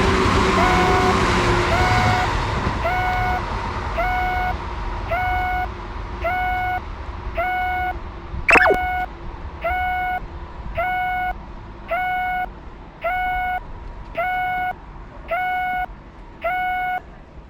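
Japanese railroad crossing warning bell ringing in a steady repeating dong about once a second, while a passing train's rumble fades away over the first couple of seconds. About halfway through comes a short, sharp falling squeal.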